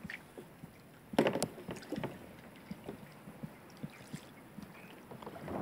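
Kayak paddling in calm water: a loud paddle-stroke splash about a second in, then scattered small drips and knocks, with the splashing picking up again near the end.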